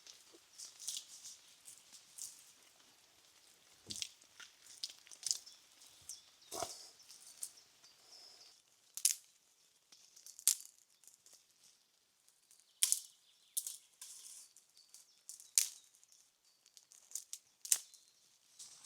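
Irregular sharp snaps and crackles, a dozen or so spread unevenly, with softer rustling in the first half.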